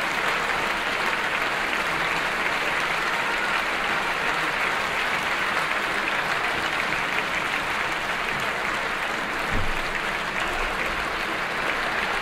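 Theatre audience applauding at a curtain call: dense, even clapping at a steady level. A single low thump sounds about nine and a half seconds in.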